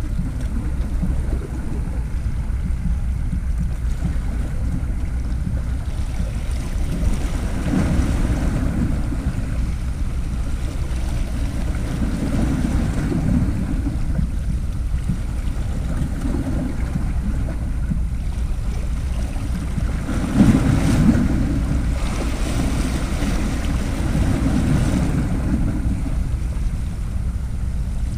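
Wind rumbling on the microphone, with small sea waves washing against shore rocks, swelling every few seconds. The biggest wash comes about two-thirds of the way through.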